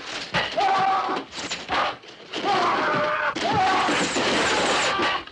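A man's repeated screams and cries, pitched and bending up and down, as arrows thud into wooden walls around him with sharp, sudden impacts.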